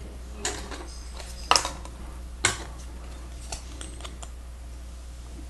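Plastic Lego Technic pieces clicking and clattering as panels are handled and pressed on: a few sharp clicks, the loudest about one and a half and two and a half seconds in.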